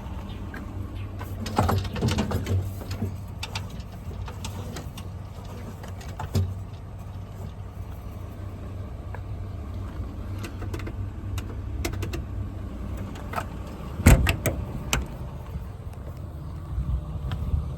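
Truck engine idling steadily, with scattered clicks and clunks and one loud knock about fourteen seconds in.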